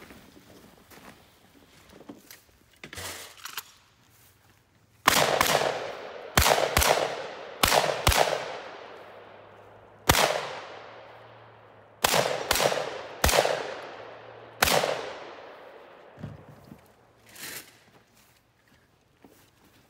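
About a dozen gunshots, some in quick pairs and others a second or two apart, each trailing off in a long echo. They start about five seconds in and stop near fifteen seconds. Softer knocks and shuffling come before and after.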